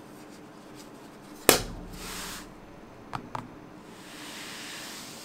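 Oladance OWS Pro charging case lid snapping shut with one sharp click, followed by a brief rustle and then two light taps as the case is set down on the table.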